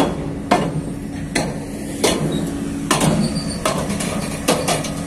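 A 280-ton crawler crane travelling on its tracks: the steel track shoes clank and knock at an uneven pace, a little under two a second, over the steady hum of its engine.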